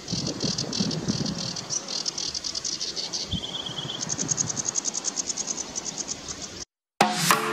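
Sedge warbler singing: a fast series of repeated high notes with a short lower chatter, speeding up into a rapid trill about halfway through. The song cuts off suddenly near the end and music begins.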